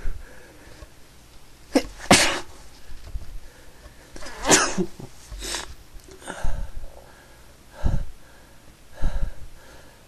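A person sneezing again and again, the loudest sneezes about two seconds and four and a half seconds in, with smaller bursts between. The sneezer puts the fits down to being allergic to something.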